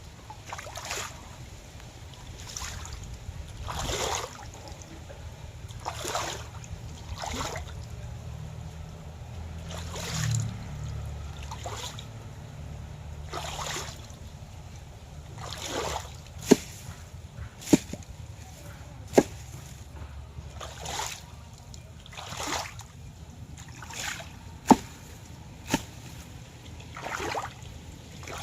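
Water sloshing and splashing in soft swells every second or two over a steady low hum, with a few sharp clicks in the second half.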